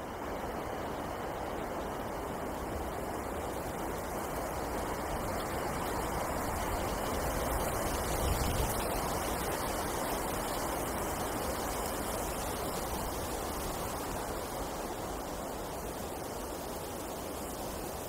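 Wind blowing through a snowy forest, a steady rush that swells into a stronger gust about eight seconds in and then eases off.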